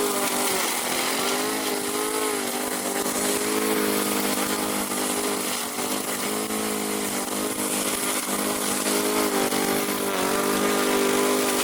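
A remote-controlled lawn mower's 13 HP 452cc Loncin single-cylinder petrol engine running steadily. Its pitch sags and recovers several times as the load changes.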